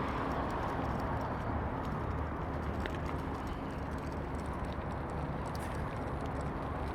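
Steady outdoor rumble of distant road traffic, with a faint click about three seconds in.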